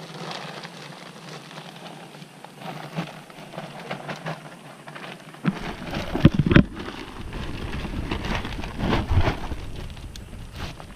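A plastic bag rustling and crinkling as it is handled, with heavier rustles and low thumps about six seconds in and again near nine seconds.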